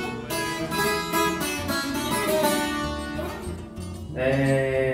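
Left-handed Takamine EF381SC Legacy twelve-string acoustic guitar being played, its notes and chords ringing on, with a new chord struck about four seconds in.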